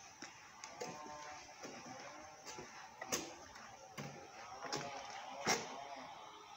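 Several sharp knocks at irregular intervals, the loudest near the end.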